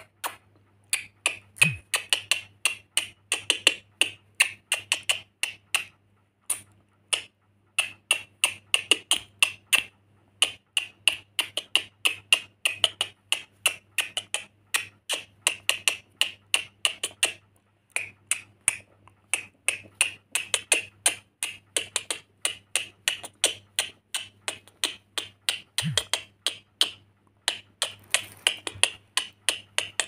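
Rainbow lorikeet making quick, sharp clicks, several a second, in long runs broken by short pauses, while it plays and bobs.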